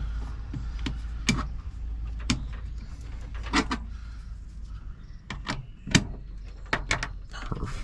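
Irregular sharp metallic clicks and taps, about a dozen, from the parts of a Baldwin mortise lock being handled and fitted during reassembly, over a steady low hum.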